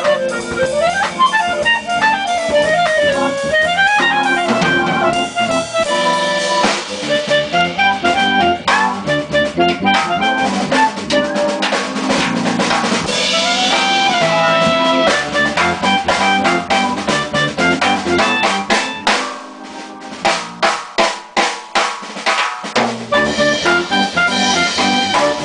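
Live jazz combo: a clarinet's melody glides over electric bass, keyboard and drum kit in the first few seconds, then the drums come to the fore with busy snare and rimshot playing. Later the bass drops out for a few seconds while the drummer plays a break of separate sharp hits, and the band comes back in near the end.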